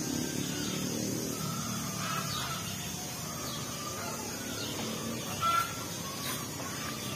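Outdoor ambience: a steady low rumble with birds chirping now and then, one chirp standing out about five seconds in.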